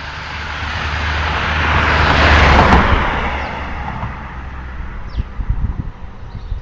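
A car passing by on a nearby road: its engine and tyre noise swell to a peak about two and a half seconds in, then fade away.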